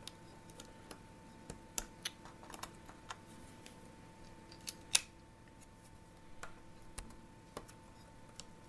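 Aluminium foil being folded and pressed into place by hand, giving sparse small crinkles and clicks, with one sharper click about five seconds in. A faint steady high hum runs underneath.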